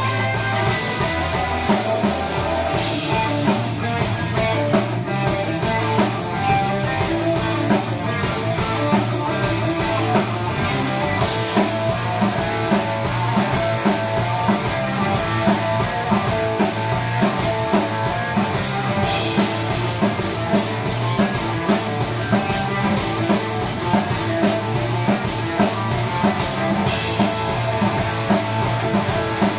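Progressive rock band playing live, with drum kit and guitar over a steady beat. A cymbal crash comes about every eight seconds.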